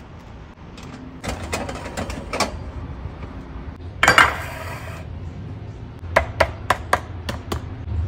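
A metal muffin tin set down on a stone countertop: a few light clanks, then a loud, scraping clatter about four seconds in as it lands. Six sharp knocks follow in quick succession near the end.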